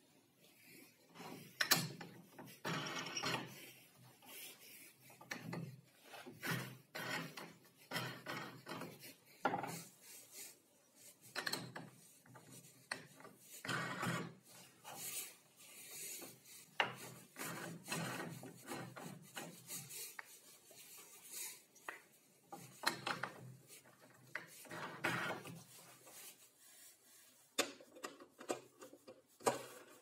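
Plywood star knobs handled on wood: irregular scraping and rubbing as they slide along a wooden rail, with short knocks as they are set down.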